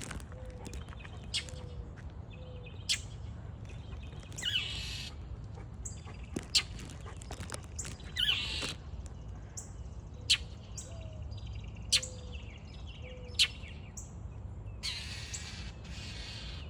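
Northern mockingbird scolding with sharp single chack calls every second or few, broken three times by longer harsh rasping calls: the scolding of an agitated bird. Under them is a faint steady low rumble.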